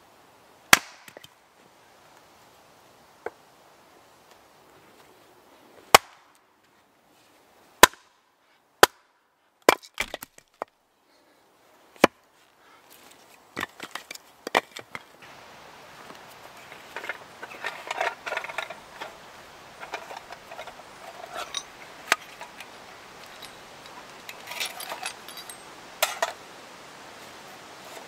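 Axe chopping firewood on a wooden chopping block: about eight sharp, separate chops spaced a second or more apart over the first dozen seconds. After that come rustling and crinkling handling noises with a few knocks.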